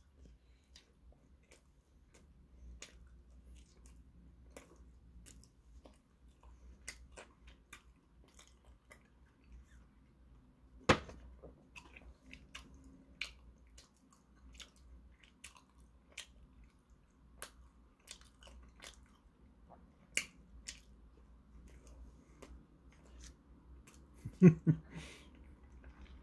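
Close mouth sounds of a man eating a soft red bean bun: quiet chewing with many scattered wet clicks and lip smacks, a few louder ones. Near the end comes the loudest sound, a short cluster as he sips banana milk through a straw.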